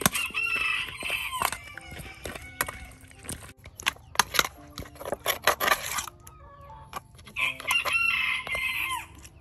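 A rooster crowing twice, once right at the start and again near the end, each crow about a second and a half long and ending in a falling tail. Scattered clicks and knocks in between.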